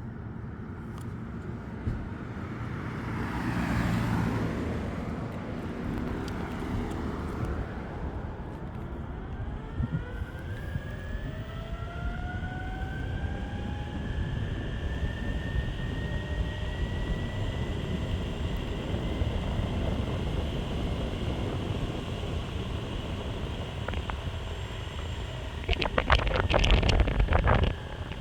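Meepo Hurricane electric skateboard riding at speed on pavement: the wheels rumble while the motors' whine rises in pitch as it accelerates, then holds steady. Near the end comes a couple of seconds of louder rough noise.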